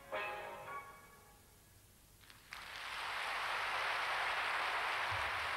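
The last note of the ballet's music dies away, then audience applause swells up about two and a half seconds in and holds steady.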